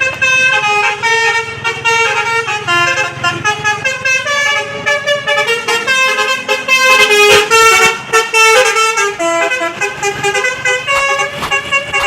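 Basuri multi-tone 'telolet' bus horn playing a fast melody, its notes stepping up and down several times a second without a break.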